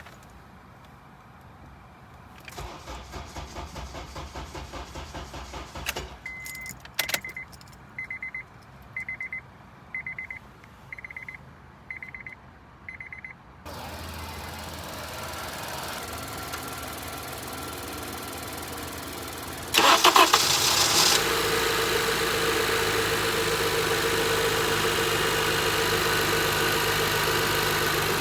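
Rapid clicking for a few seconds, then a warning chime beeping about once a second. About twenty seconds in, the Honda's engine cranks briefly, starts and settles into a steady idle while it is being jump-started.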